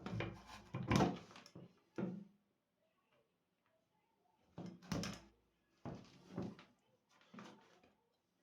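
Tools and wire being handled on a work surface while a wire end is prepared with pliers: bursts of knocking and clatter, the loudest in the first two seconds and again about five seconds in.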